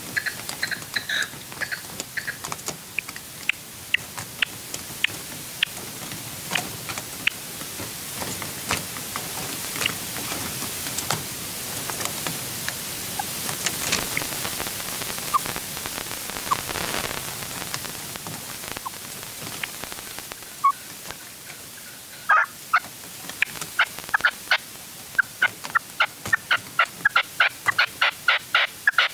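Red-legged partridge calling: short, sharp notes repeated at intervals, thinning out midway, then quickening into a rapid run of notes near the end.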